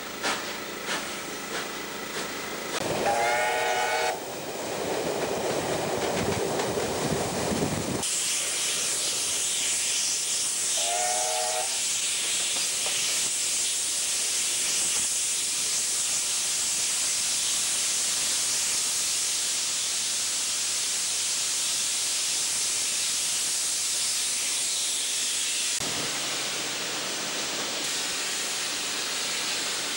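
Steam locomotive 3801's whistle sounding twice: a blast of about a second and a half about three seconds in, and a shorter one about eleven seconds in, over the noise of the moving train. From about eight seconds a loud, steady rushing hiss of the running train takes over and eases off near the end.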